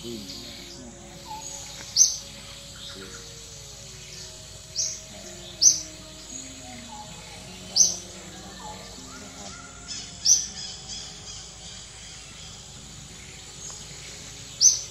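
A bird repeatedly gives a short, sharp, high-pitched call, six times at irregular intervals of one to four seconds, over a steady outdoor background with fainter calls beneath.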